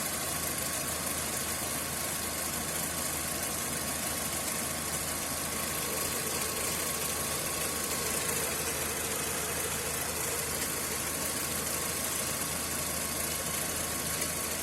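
Škoda Fabia 1.4 MPI four-cylinder petrol engine idling steadily while warming up. It is still running normally, without the ticking under the valve cover that appears once fully hot, which the owner suspects is a hydraulic lifter, a valve or a stretched timing chain.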